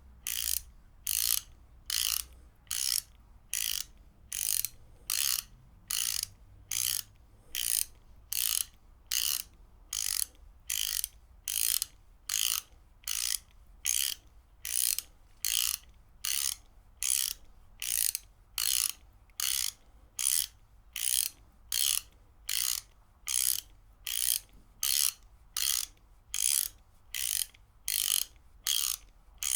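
Ratchet wrench being worked back and forth in an even rhythm: short runs of rapid pawl clicks, about three strokes every two seconds.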